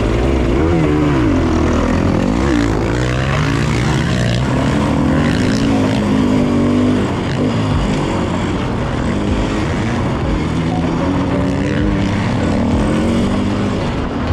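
KTM enduro motorcycle engine revving as the bike is ridden round a motocross circuit, its pitch rising and falling again and again.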